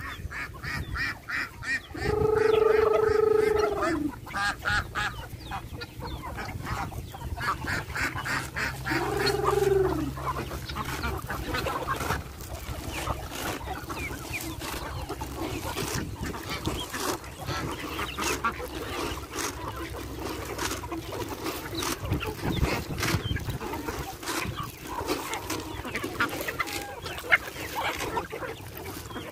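A mixed poultry flock of geese, ducks and chickens calling while feeding, with two long goose honks, the first about two seconds in and the second near ten seconds in. A steady patter of quick small clicks runs beneath, the birds pecking at scattered corn.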